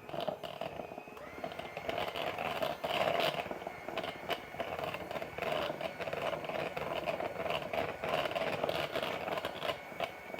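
Electric hand mixer running steadily with a thin motor whine, its beaters whipping ghee and honey together into honey butter and scraping against the bowl.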